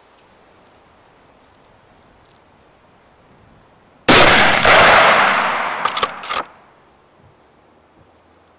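A single Blaser hunting rifle shot about four seconds in: a sudden sharp crack that rings on for about two seconds as it dies away, with a few sharp clicks near its end.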